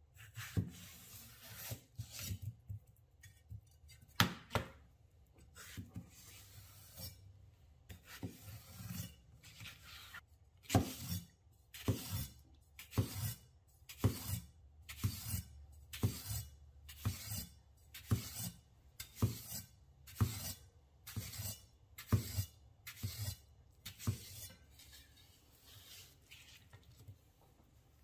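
A wide-bladed kitchen knife slices through a peeled cucumber and strikes a wooden cutting board, a series of sharp chops. The chops are spaced irregularly at first, then settle to about one a second before tailing off near the end.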